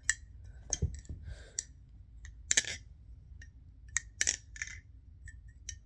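Nabalis Impulse balisong being flipped: its metal handles click and clink against each other and the blade, about a dozen sharp, irregular metallic clicks, each with a short ring.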